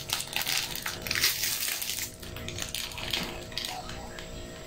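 Plastic snack-cake wrapper being torn open and crinkled by hand: a run of short crackles and rustles, busiest in the first two seconds and thinning out after.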